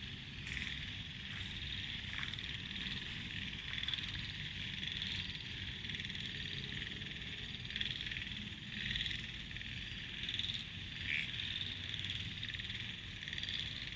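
Frogs croaking in a dense, continuous chorus that swells and eases. A high, rapidly pulsing insect trill sounds above it during the first two seconds and again about seven to nine seconds in.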